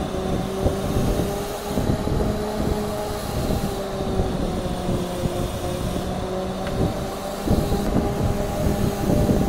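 Steady machine hum with a few held tones over a constant low rumble.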